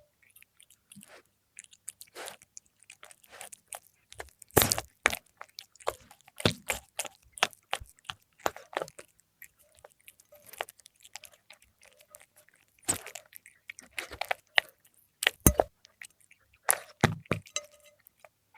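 A cat chewing fried milkfish: irregular wet crunches and smacks with pauses between bites, and a few sharp loud crunches as it bites through crisp pieces or bones.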